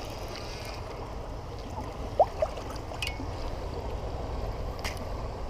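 Steady rush of shallow river water flowing around the kayak, with one short rising squeak about two seconds in and a couple of faint clicks.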